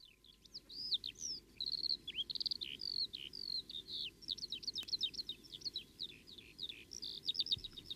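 A songbird singing a continuous, rapid run of varied chirps and whistles over faint steady background noise.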